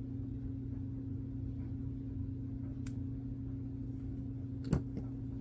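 Steady low electrical-sounding hum, with a few small clicks from hand cutters trimming a plastic coupler part: a faint click about three seconds in and a sharper one near the end.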